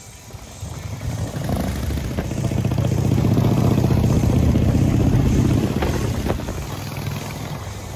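Custom Harley-Davidson V-twin chopper motorcycle riding up and passing close by. Its engine note grows louder to a peak around the middle, then fades near the end.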